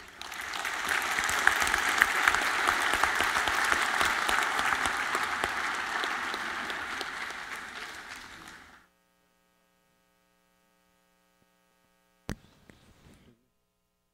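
Audience applauding, building within the first second and dying away about nine seconds in. After that, near silence with a faint steady hum and a single sharp click.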